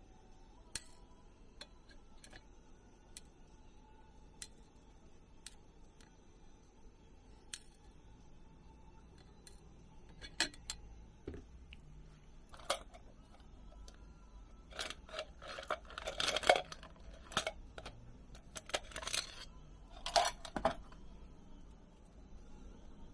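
Sharp single clicks of small hard tools and parts being handled at a workbench, then a busier run of clicking and clattering about fifteen seconds in and again near twenty seconds in.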